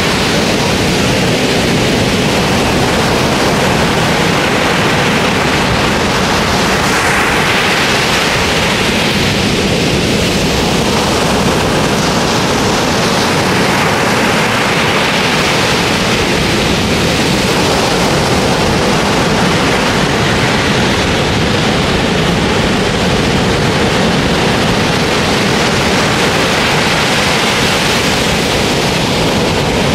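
Ocean surf breaking on a sandy beach: a loud, steady rush of water that swells and eases every few seconds as each wave comes in.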